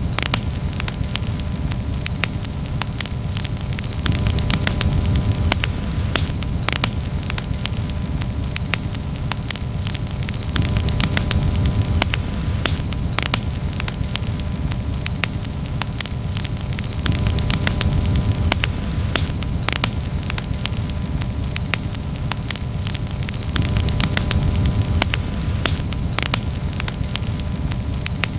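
Campfire burning with dense, irregular crackles and pops over a steady low rumble.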